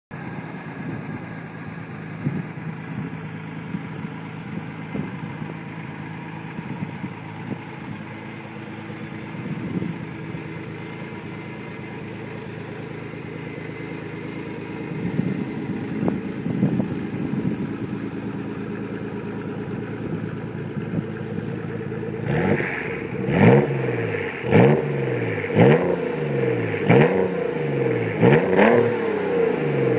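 Nissan 300ZX V6 running through a Greddy aftermarket exhaust, idling with an occasional throttle blip. About two-thirds of the way in it starts a quick run of sharp revs, about one a second, each rising and falling back.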